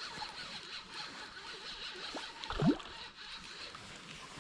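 A 13 Fishing Creed X 3000 spinning reel being cranked steadily, reeling in a hooked chain pickerel, with a short rising swish about two and a half seconds in.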